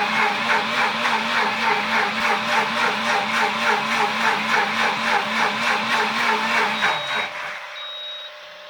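Pampered Chef Deluxe Cooking Blender running its heated-wash self-cleaning cycle, a rhythmic pulsing whir that stops about seven and a half seconds in. Three short high beeps follow close together, signalling that the cleaning cycle has finished.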